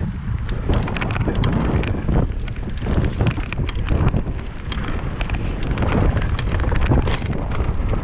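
Wind buffeting the microphone while a downhill mountain bike is ridden over rough ground, with frequent rattling and knocking from the bike.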